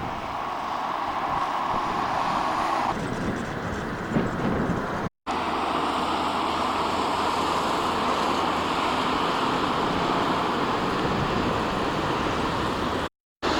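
City street traffic: cars running past in a steady rumble, broken twice by brief silences where the clips are cut.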